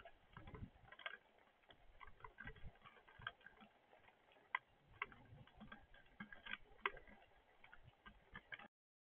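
Heavy rain, with raindrops ticking irregularly against the feeder camera and its tray over a faint hiss, cutting off suddenly near the end.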